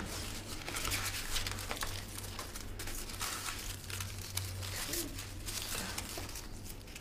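Faint rustling and scattered light clicks over a steady low hum.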